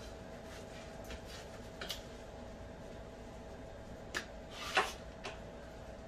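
Gloved hands rubbing oil onto raw tilapia fillets on a metal tray: faint crinkles of disposable plastic gloves and soft wet rubbing, a few short sounds with the loudest about five seconds in, over a faint steady hum.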